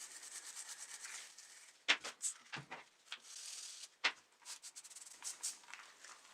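Quick, even rubbing strokes, about ten a second, on a small model car part, then scattered clicks and knocks of small parts being handled, with short bursts of scraping.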